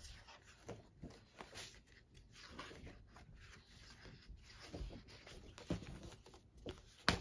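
Pages of a thin paper picture book being turned and the book handled: faint paper rustling with small soft taps, and one sharper knock just before the end.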